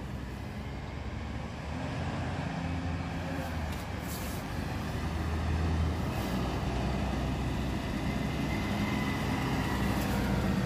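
Garbage truck's diesel engine running as the truck drives closer, growing steadily louder, with a few brief hisses.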